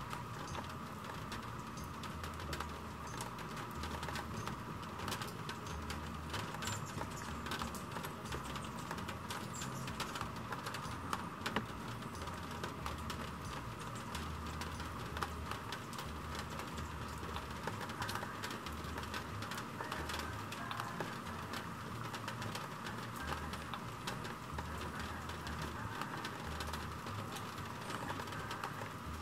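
Steady rain falling on garden foliage, with many small drops ticking.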